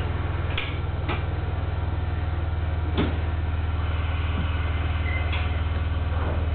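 Steady low hum of a stopped electric train's cab and on-board equipment, with a few sharp clicks and knocks, about four in all, as the driver handles the cab controls.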